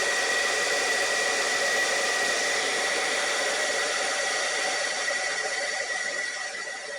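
Cloud Nine Airshot hairdryer running on test after its blown thermal fuse was replaced: a steady rush of air with a high steady whine from the motor. It drops in level a little near the end.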